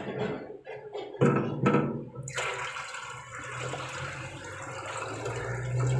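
Water poured from a plastic bucket into a plastic tub that already holds water, gushing and splashing steadily; the pour starts suddenly a little over two seconds in, after two brief knocks.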